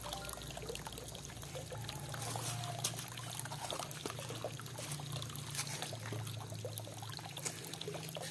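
Small granules poured from a plastic cup, trickling onto potting soil, with scattered light clicks and rustles.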